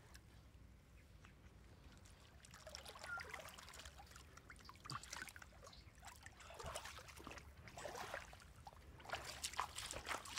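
Quiet water trickling and sloshing in short, irregular bursts, as when shallow water is stirred.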